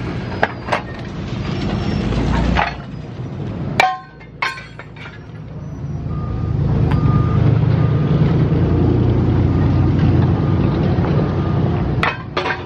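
A few sharp metal clanks, then a vehicle engine running, with a reversing alarm beeping at a steady pace from about halfway through.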